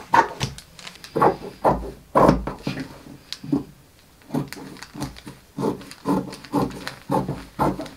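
Scissors cutting through pinned cotton gingham and its paper pattern, a run of short crunching snips about twice a second.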